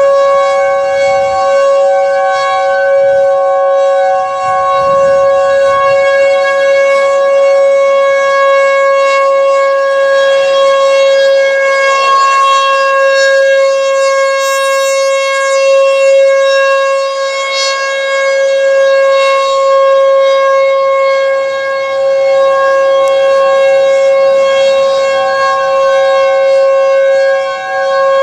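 American Signal Tempest T-128 rotating outdoor warning siren sounding a loud, steady tone at full pitch during its monthly test. The loudness swells and dips slightly every few seconds as the siren rotates.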